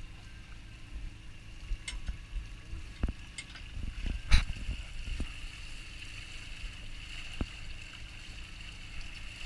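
A fishing net being hauled in by hand over the side of a boat. Several knocks and splashes sound over a steady low hum from the boat's machinery; most of them come between about two and five seconds in, the loudest a sharp knock about four and a half seconds in.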